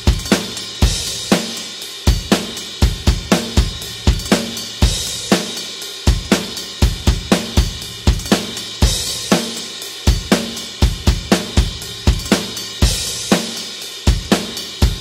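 Rock drum kit playing a steady beat at 120 bpm, with kick drum, snare and hi-hat, and a cymbal crash every couple of bars; drums alone, with no other instruments.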